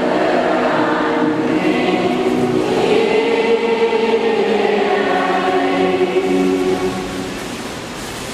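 A congregation of many voices singing a hymn together on long held notes, growing quieter near the end.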